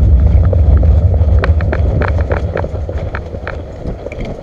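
Footsteps of several people running on a dirt track, with gear rattling and a heavy wind rumble on the microphone that eases off over the seconds.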